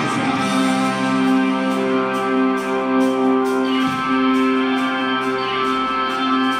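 Live rock band playing an instrumental passage: held chords on guitar and keyboard over a steady cymbal beat, with no singing.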